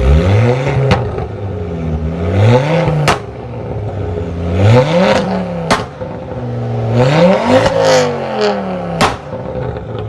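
Car engine revving up and dropping back about four times, each rise climbing steadily in pitch, with sharp clicks between the rises.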